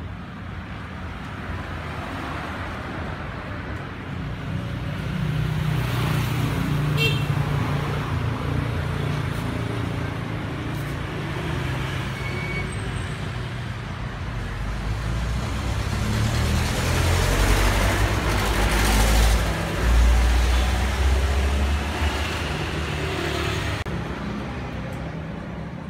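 Road traffic passing on the street: vehicle engines swell and fade twice, the second pass, about two-thirds of the way in, the louder.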